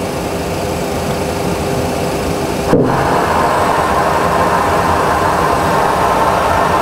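Steady cockpit air noise of a Boeing 737 Classic flight simulator. About three seconds in it changes abruptly to a louder rushing-air sound: the simulated rapid decompression at cruise altitude.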